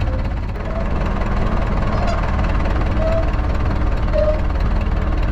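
Zetor tractor engine running steadily with a fast, even low pulsing. Short high chirps come about once a second over it.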